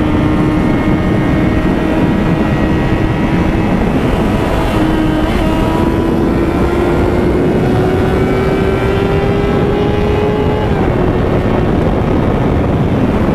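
Yamaha FZ6's inline-four engine running at speed, its pitch climbing slowly as the motorcycle accelerates, then dipping about ten and a half seconds in. Wind and road noise rush underneath.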